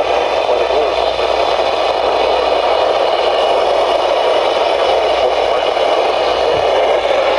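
Steady radio static hiss from a receiver with no program audio coming through.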